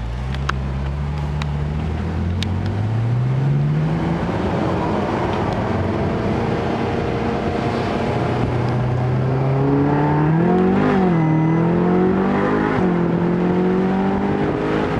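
Ferrari California's V8 engine heard from inside the cabin, pulling away and accelerating hard, its pitch rising steadily. Near the end the pitch drops sharply twice and climbs again as the gearbox shifts up.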